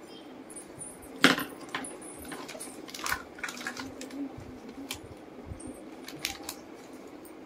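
Small plastic toy dishes and kitchen pieces clacking as they are set down on a tiled floor, a string of light knocks and clicks with the loudest about a second in, along with rustling of a clear plastic bag.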